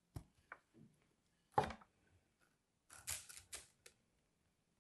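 Hands handling dry bars of soap: a few sharp taps and clicks, a louder knock about one and a half seconds in, and a short patch of crisp, scratchy clicks around three seconds in.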